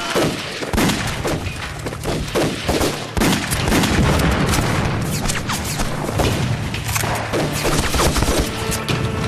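Battle gunfire: a fusillade of many rapid, overlapping gunshots going on throughout, with dramatic score music underneath.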